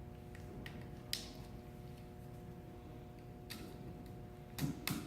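Light clicks and taps from small connectors and cables being handled and plugged in, with two sharper clicks close together near the end, over a faint steady hum.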